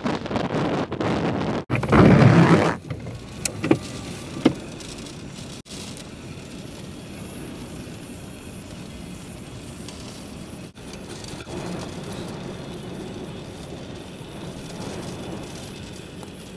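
Storm wind buffeting the microphone over a rush of surf, loudest in the first few seconds. After an abrupt cut it drops to a quieter, steady rush with a couple of sharp clicks.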